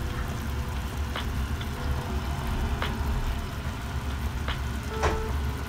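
A steady low rumble, with a few light clicks scattered through.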